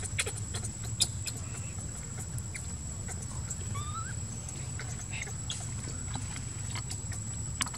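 Outdoor ambience with a steady high-pitched whine and a low rumble, scattered light clicks, and a brief faint rising squeak from a baby monkey a little past the middle.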